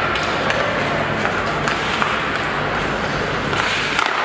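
Ice rink sound: a steady hiss of skate blades on the ice, with scattered sharp clicks of a hockey stick handling the puck and a cluster of clicks near the end as the shot is taken.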